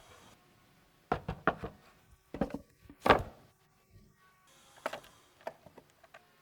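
Irregular knocks on wood: a quick run of strikes about a second in, a couple more, then the loudest single knock about three seconds in, and a few lighter taps near the end.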